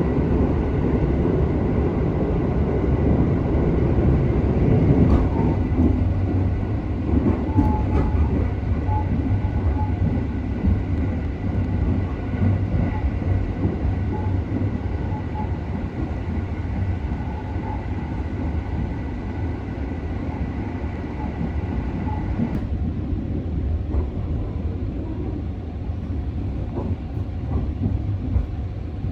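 285-series sleeper electric train running along the line: a steady rumble of wheels on rail with a thin steady whine over it. About three-quarters of the way through the sound changes abruptly to a duller, quieter rumble.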